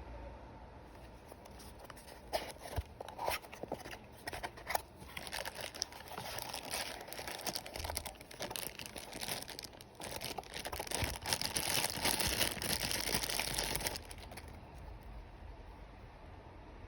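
Packaging being opened and handled: crinkling and tearing with scattered sharp clicks. It is densest in a long stretch of continuous crinkling that stops about three seconds before the end.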